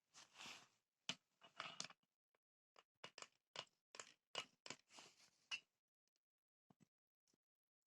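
Faint series of short scrapes and clicks, about a dozen in the first six seconds, like hand work or handling of small objects.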